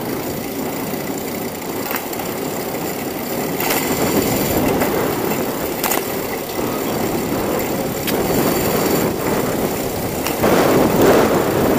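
Steady road and wind noise from a bicycle ride, with a few sharp clicks and rattles. It grows louder near the end.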